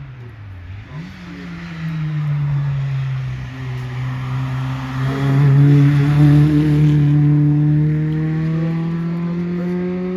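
VW Polo hillclimb race car's engine under hard acceleration: the revs dip briefly about half a second in, then climb slowly and steadily in one long pull, loudest around the middle.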